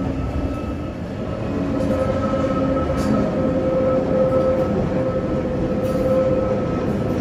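Interior of a 1960s SIG/Brown Boveri electric railcar on the move: a steady running rumble with a steady whine over it, getting somewhat louder about one and a half seconds in.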